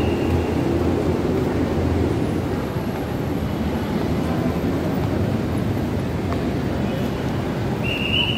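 Steady city street noise: a loud, even rumble of traffic, with a thin high tone briefly at the start and again near the end.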